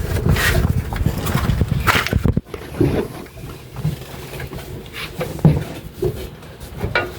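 Scattered knocks and clanks of metal parts and tools while a steering rack is being worked loose from under a car, over a low rumble that cuts off sharply a little over two seconds in.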